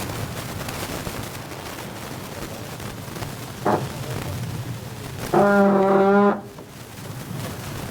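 A horn gives a very short toot, then about a second and a half later one loud blast lasting about a second, over steady wind and water noise.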